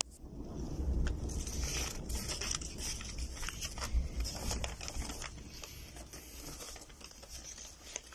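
Sheets of torn paper rustling and crinkling in a run of short crackles as hands unfold them and fit the pieces together, over a steady low rumble.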